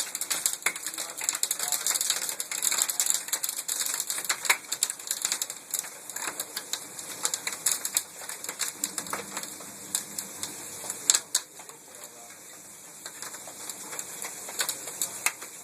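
Hailstones striking hard surfaces in a dense, rapid clatter of clicks, which thins to scattered hits after about six seconds.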